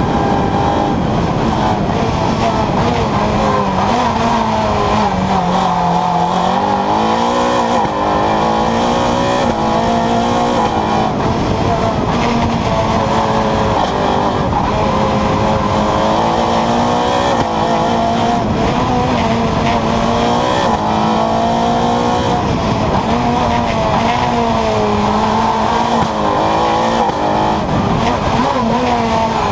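Renault Clio R3 Maxi rally car's 2.0-litre four-cylinder engine driven hard on a tarmac stage, its revs climbing and dropping again and again through gear changes and corners, over a constant rush of wind and road noise.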